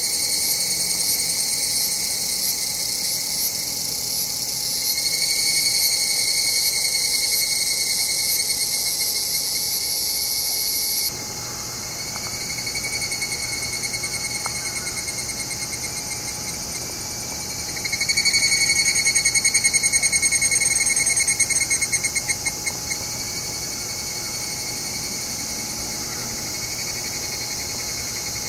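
Higurashi (evening cicadas) calling in an overlapping chorus of high, ringing trills. About 18 s in, a louder one starts up, its call breaking into quick pulses that fade out around 23 s. Before that, about 11 s in, the chorus drops abruptly in level.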